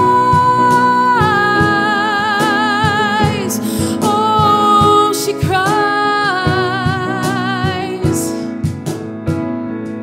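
A woman singing held, wavering notes over piano and a steady beat; her voice drops out near the end.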